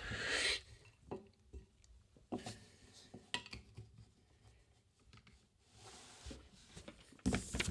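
Faint, scattered clicks and taps of hard plastic card cases being handled and set down on a tabletop, with a short rustle at the start.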